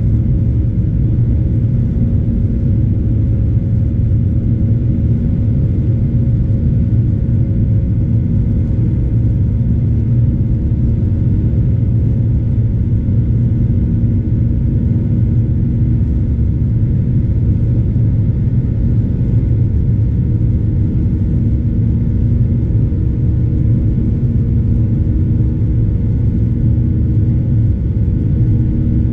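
Steady low rumble of a Boeing 737-800's CFM56-7B engines and airflow in flight, heard inside the passenger cabin, with a faint steady hum over it.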